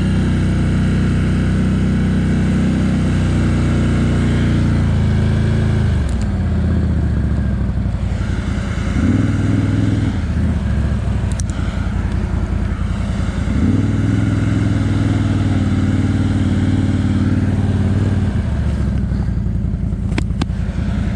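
Can-Am Outlander XMR ATV's V-twin engine pulling through deep, soft snow. The revs hold steady, then drop and rise again several times as the machine works against the snow and starts to sink in.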